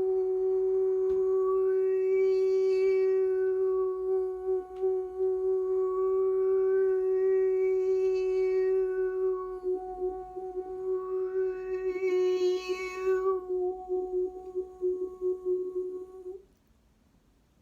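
Crystal singing bowl sustaining a steady tone, with a high vocal tone sliding up and back down three times over it; both stop suddenly near the end.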